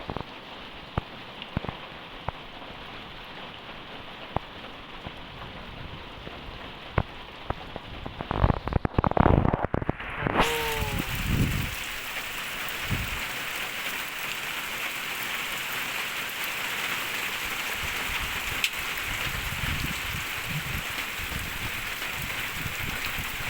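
Rain falling steadily, with scattered drops striking close by. About eight to eleven seconds in there is a run of loud close thumps, after which the rain sounds fuller and hissier.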